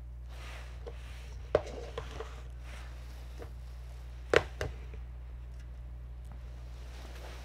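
Handling of an aluminium beer can: a few light clicks, then one sharp knock about four seconds in as the can is set down on the plastic lid of a cotton-swab tub, with a smaller knock just after. Soft rustling in the first few seconds, over a steady low hum.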